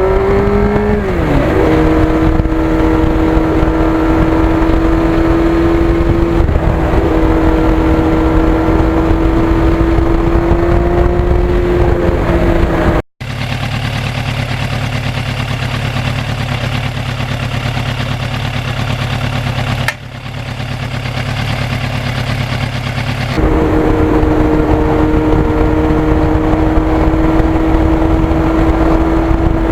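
1991 Yamaha FZR1000's inline-four engine running at a steady cruising pitch under way, its note dropping once about a second in. After a sudden cut there is a stretch of low wind rumble without the engine note, and then the steady engine note comes back near the end.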